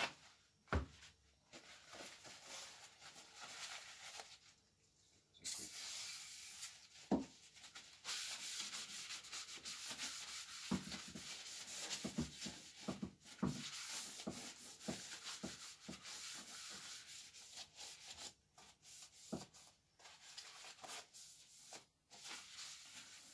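Paper towel wiping over the roaster's metal casing: a scratchy rubbing that goes on in long stretches, with a few light knocks against the machine.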